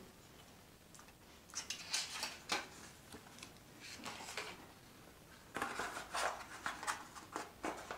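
Packaging of a phone's retail box being handled: rustling and light scraping and knocking of cardboard and plastic, in a few short spells about one and a half, four and five and a half seconds in.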